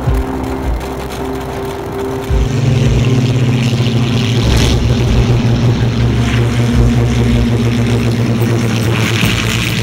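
Spitfire fighters' Rolls-Royce V12 piston engines running with a steady propeller drone as the aircraft taxi. About two seconds in, the sound jumps louder to a deeper, even drone.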